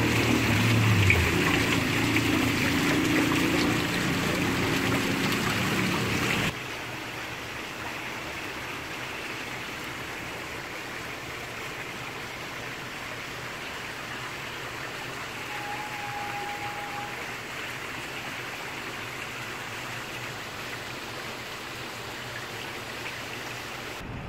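Water pouring down an artificial rock-wall waterfall into a pool, a steady rushing splash. About six and a half seconds in it cuts off abruptly to a much quieter steady outdoor hiss, with one short steady tone a little past halfway.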